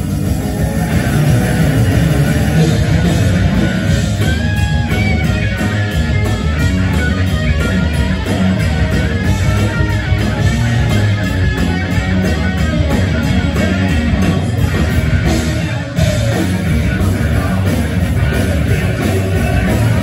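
Live hard rock band playing loud through a concert PA: electric guitar playing bending lead lines over driving drums and bass.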